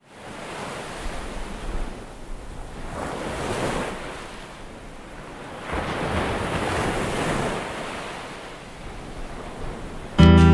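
Ocean waves washing in, swelling and fading in slow surges, with some wind noise. Near the end, strummed acoustic guitar music starts suddenly.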